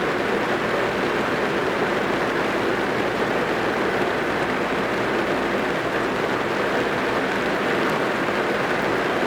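Steady rain falling on a car's roof and glass, heard from inside the car as an even, unbroken patter.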